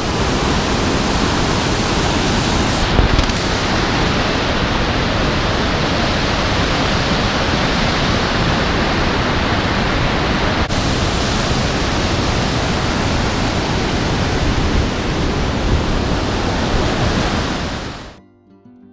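Whitewater river rapids: water rushing loudly and steadily over rocks, with a brief low thump about three seconds in. The rushing fades out near the end, giving way to background music.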